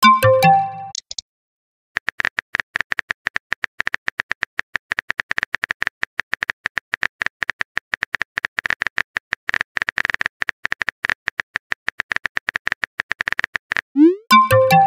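Rapid keyboard tapping clicks of a phone texting app as a message is typed out. A short rising chime of a message being sent comes at the start and again near the end.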